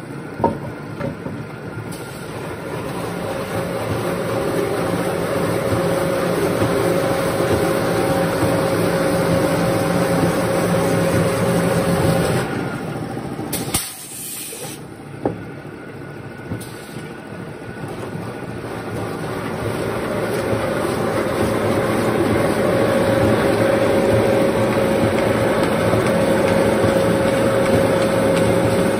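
Log-peeling machine running, its electric motor and chain-driven spiral rollers turning a log, a steady mechanical whir with a hum. It grows louder over several seconds, cuts off sharply about halfway through, gives a few knocks, then builds up again and holds steady.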